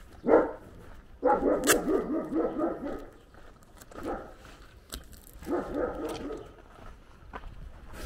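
A dog barking behind a fence in quick volleys. One bark, then a run of rapid barks lasting about two seconds, a single bark near the middle, and another short run of barks past the halfway point.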